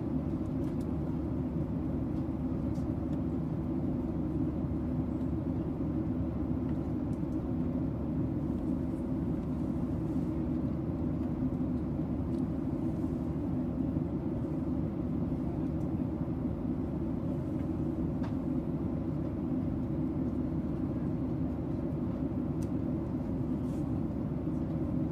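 Steady airport-apron ambience: a constant low rumble with a hum from aircraft engines, unchanging throughout.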